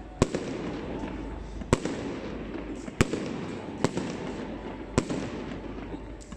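Fireworks exploding: five sharp bangs at irregular intervals of roughly a second, over a steady background din.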